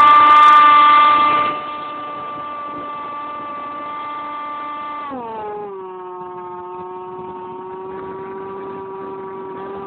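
RC model plane's motor and propeller running, recorded from a phone taped to the airframe: a steady whine that turns quieter about a second and a half in as the throttle is eased, then slides down in pitch about five seconds in and holds at the lower pitch as the plane descends.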